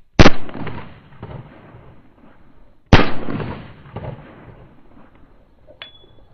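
Two handgun shots about two and a half seconds apart, each very loud and followed by a long echo.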